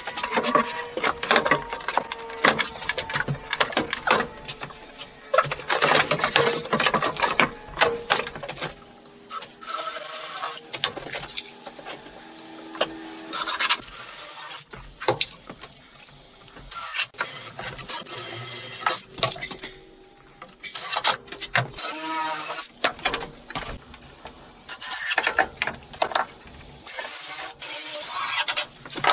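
A cordless power driver running screws into pine boards in repeated short bursts, about eight times, each about a second long, with knocks and clatter of boards being handled, busiest in the first third.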